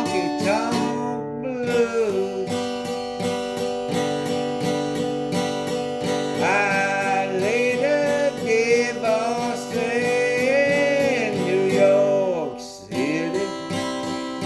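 Country song played on strummed acoustic guitar, with a melody line that slides and bends between notes above the strumming. The music thins out briefly near the end, then the strumming carries on.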